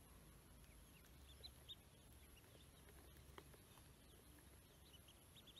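Ducklings peeping faintly: a few short, high peeps scattered through, clustered about a second in and again near the end, with a couple of soft taps.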